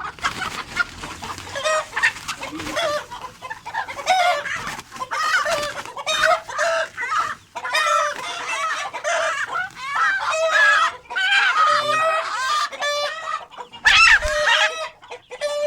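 Ayam Cemani chickens clucking and calling over and over, with a thump about 14 seconds in.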